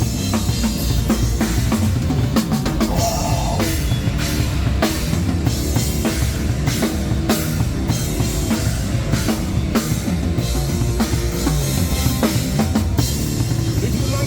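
Live rock band playing loud and steady without vocals, the drum kit to the fore: bass drum and snare driving the beat with frequent cymbal crashes over a heavy low end.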